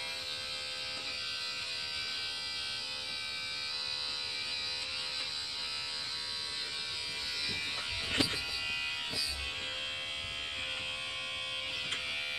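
Cordless electric hair trimmer running with a steady buzzing hum, held right by the microphone. There is a single sharp tap about eight seconds in.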